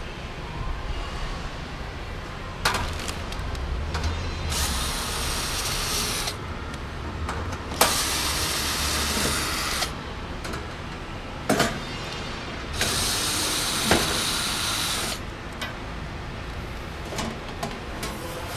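Cordless drill/driver running in three bursts of about two seconds each, backing out the screws that hold a cover panel, with a few clicks and knocks between the bursts.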